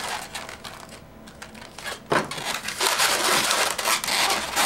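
Inflated latex balloons of a twisted balloon sculpture rubbing and squeaking against each other and against hands as the figure is gripped and adjusted. It is quieter at first, with a sharp squeak about two seconds in, then a dense run of rubbing and squeaking near the end.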